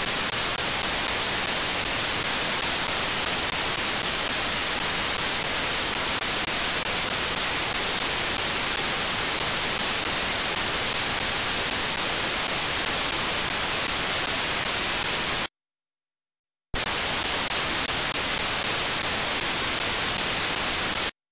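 Steady FM receiver static from a software-defined radio demodulating wideband FM: a plain hiss, stronger in the highs, with no station audio coming through, the fault the owner cannot work out. The audio cuts out completely for about a second past the middle, and again near the end.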